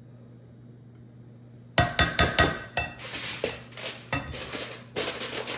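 A serving spoon clinking and scraping against a dish as food is scooped onto a plate. It starts about two seconds in with a few sharp clinks, followed by repeated scrapes.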